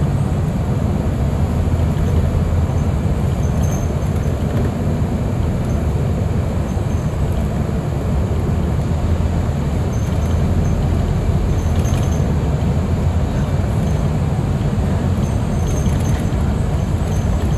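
Interior of a city transit bus under way: a steady low engine and road rumble, with a few faint clicks and rattles from the cabin fittings.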